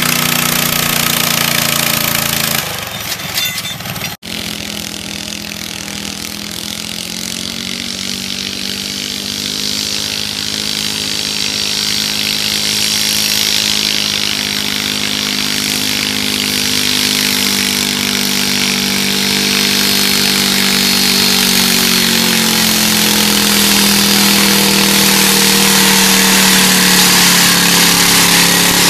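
Small garden pulling tractor engine running at a steady pitch under load, growing gradually louder. There is a brief drop and a sharp cut-out about three to four seconds in.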